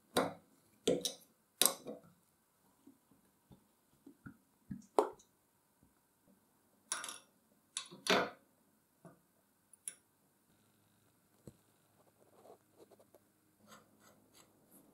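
Small metal parts being handled on a 1959 air compressor pump: a teflon-taped plug screwed by hand into the crankcase, then a filler cap and a metal tool worked at the filler port. A string of sharp metallic clicks and short scrapes, loudest in the first two seconds and again around seven to eight seconds in, with fainter ticks near the end.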